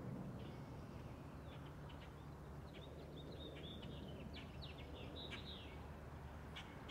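Small birds chirping in quick, short calls that come thickest through the middle, over a faint, steady low rumble from a jet airliner passing high overhead.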